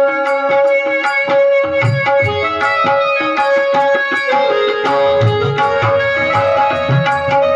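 Tabla playing a steady rhythm with deep bass strokes, under a melody of long held notes from an accompanying instrument.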